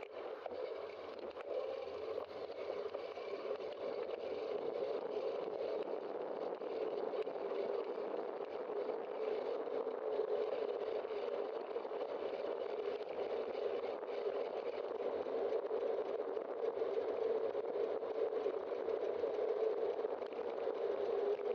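Steady rushing noise of a moving bicycle heard from a bike-mounted camera: wind on the microphone and tyres rolling on asphalt, growing gradually louder, with faint light rattles.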